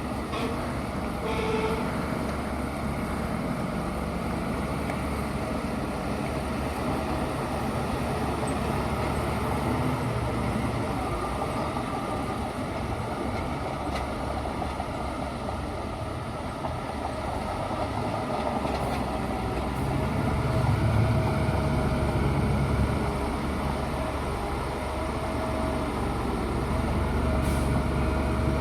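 Bulldozer's diesel engine running steadily under work, its level rising and falling, louder about two-thirds of the way in and again near the end.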